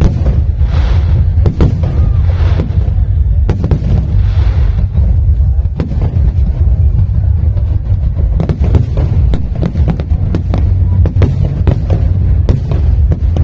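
Fireworks display with shells bursting in quick succession, sharp bangs over a constant deep rumble, and stretches of crackle after some of the bursts.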